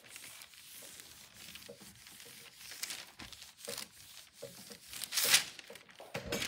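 A hand iron sliding and rubbing over silicone release paper laid on a thin rice paper painting, a dry scraping rustle as the paper is dry-mounted onto its backing. About five seconds in comes a louder crinkle of the paper sheet being handled.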